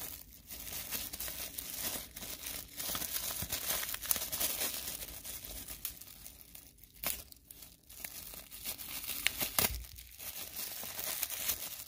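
Toy packaging being crinkled and torn open by hand while a small surprise toy is unwrapped, with a few sharp clicks along the way.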